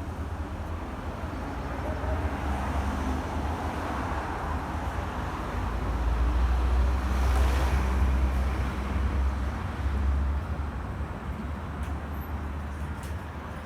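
Street traffic: a low, steady rumble of passing vehicles, with one vehicle swelling past, loudest about seven seconds in, then fading.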